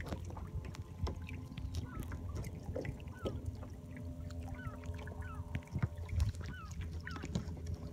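Water lapping and splashing against the hull of a sailing kayak under way, over a low rumble of wind, with scattered faint short squeaks.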